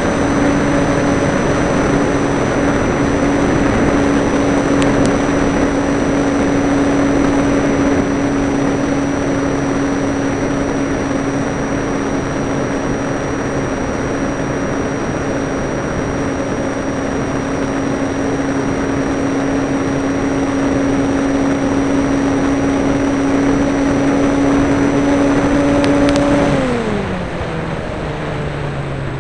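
Parkzone Radian electric glider's brushless motor and propeller running at steady throttle: a steady hum with a faint high whine over the rush of air past the onboard camera. Near the end the motor is throttled back and its pitch falls.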